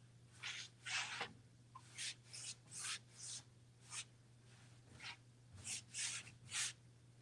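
Paintbrush bristles swept quickly across a painted wooden wardrobe door, blending wet paint: about a dozen short, faint scratchy strokes.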